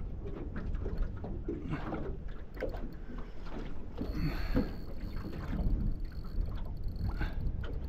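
Choppy water slapping and splashing against the hull of a small aluminium boat, with a steady low rumble of wind and water underneath and scattered short knocks.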